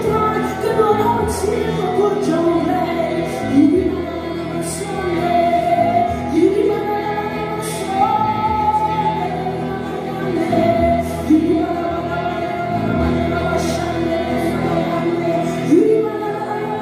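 Live praise-and-worship song: a woman's lead vocal with backing singers, over a band of acoustic guitar, electric bass and drums.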